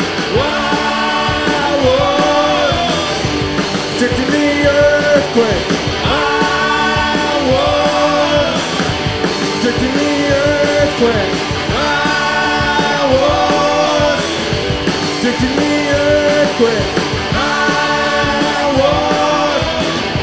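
Live rock band with electric guitars, bass and drums playing loudly between vocal lines. A pitched melodic phrase repeats about every two seconds over the full band.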